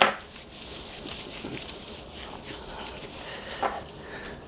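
Plastic-gloved hands rubbing and patting dry rub into a raw pork shoulder on a plastic cutting board: soft, continuous rustling and slapping, with a brief louder knock near the end.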